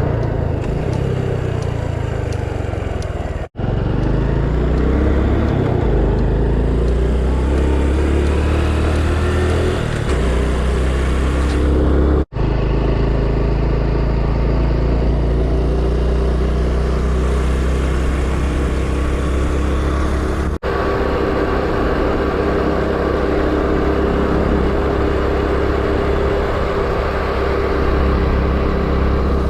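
Honda Super Cub's single-cylinder four-stroke engine running on the move, its pitch rising and falling as it speeds up and changes gear. The sound drops out for an instant three times.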